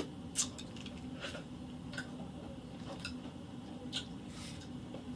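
Quiet eating sounds: scattered small clicks and smacks, roughly one a second, while chewing a mouthful.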